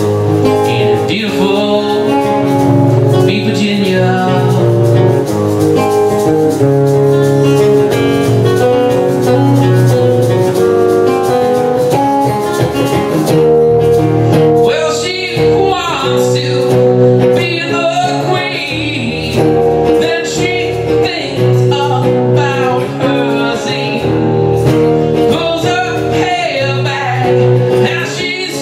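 Acoustic band playing a song live: two acoustic guitars strumming under a male lead vocal.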